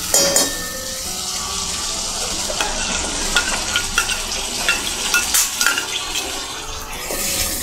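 Onion, garlic and chilli paste frying in oil in a stainless steel kadai, a steady sizzle, with a metal spoon clicking and scraping irregularly against the pan as it stirs and tomato purée is spooned in.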